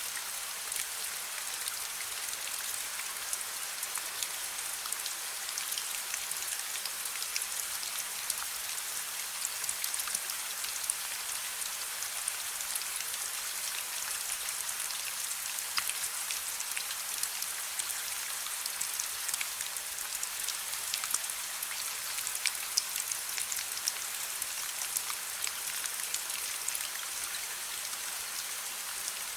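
Steady rain, an even hiss scattered with small ticks of drops, mixed with the soft crackling of a wood fire in a fireplace.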